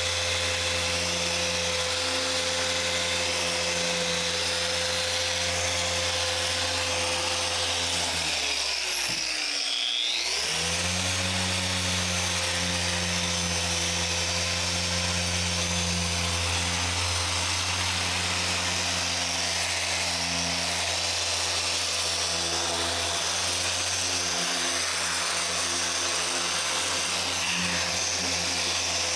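Rupes iBrid Mini cordless random-orbital polisher running steadily on car paint during compound polishing. Its motor pitch drops about eight seconds in and climbs back to speed a couple of seconds later.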